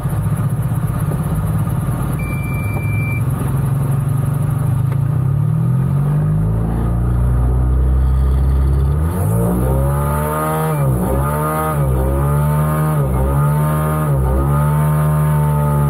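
The ASW 28-18E's retractable sustainer engine, a single-cylinder two-stroke, starting in flight. A low drone rises in pitch from about five seconds in as the propeller spins up, then runs with its pitch dipping and recovering four or five times before holding steady near the end. A short electronic beep sounds about two seconds in.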